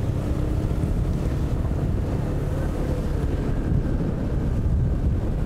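Wind buffeting the microphone of a moving motorcycle, a steady low rumble with the motorbike's engine running underneath as its tyres roll over a wet, flooded road.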